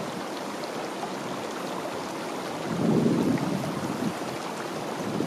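Steady rushing hiss of running water from a stream, with a gust of wind buffeting the microphone about three seconds in.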